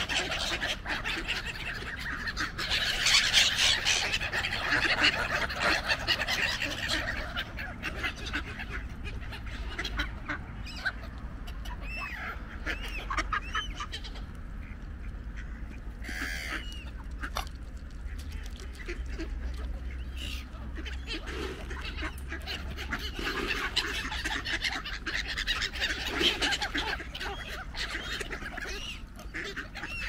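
Geese honking with ducks calling among them, a busy flock clamouring close by. The calling is thickest at the start and builds again near the end, with scattered single calls in between.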